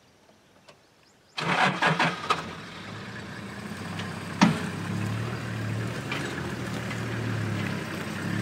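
Safari vehicle's engine starting about a second and a half in, with a few quick rattling bursts, then running at a steady idle. A single sharp knock sounds a few seconds later.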